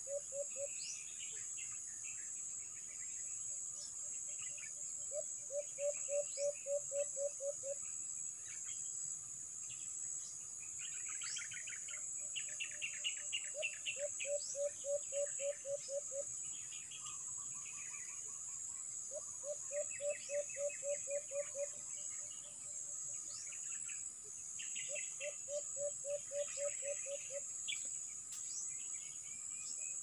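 Forest birds calling over a steady, high-pitched insect drone. A low, rapid pulsed call comes in runs of about two seconds, roughly every six seconds, among scattered higher chirps and trills.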